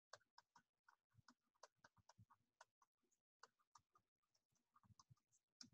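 Near silence with faint, irregular ticks and taps, several a second: a stylus writing on a tablet screen.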